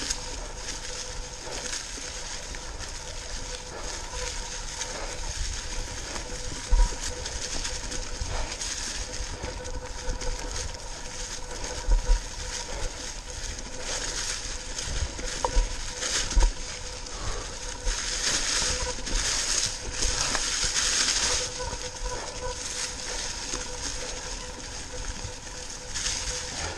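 Mountain bike tyres rolling over dry fallen leaves on a dirt trail, with a steady crackle and rustle of leaves. A few hard thumps come as the bike jolts over bumps and roots. The leaf crunching grows denser and louder for several seconds past the middle.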